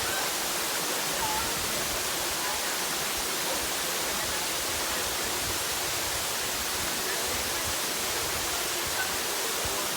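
Steady rush of water, even and unbroken, with faint distant voices now and then.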